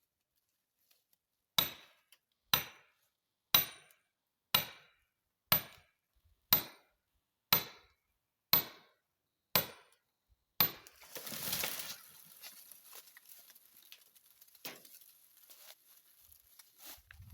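A hammer driving a felling wedge into the saw cut of a red oak trunk: ten sharp blows about a second apart. After the last blow comes about a second of crackling and rustling wood, then a few faint crackles.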